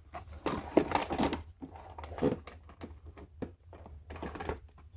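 Scattered plastic clicks, knocks and rattles from the parts of a Milwaukee M12 wet/dry shop vac and its HEPA filter being handled.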